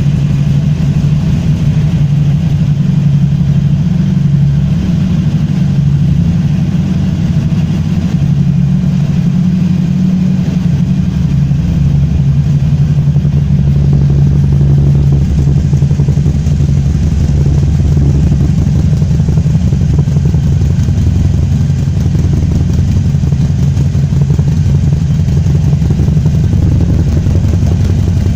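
Harley-Davidson Iron 883's air-cooled 883 cc V-twin running at low revs through an open exhaust, a loud, steady beat with only slight changes in speed.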